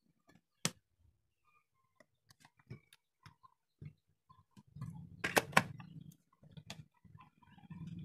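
Scattered clicks and knocks of plastic electrical fittings being handled and fitted: a switch-outlet plate, a junction box and a breaker enclosure. One sharp click comes just under a second in, and a cluster of louder clicks about five seconds in, with rustling handling noise after it.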